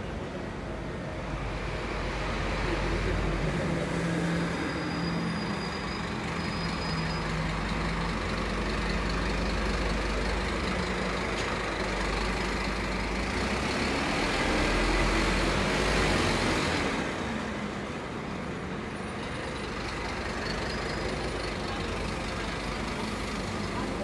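City bus engine running in street traffic beside the pavement, its pitch rising and falling around the middle, with the loudest rush of noise a few seconds later.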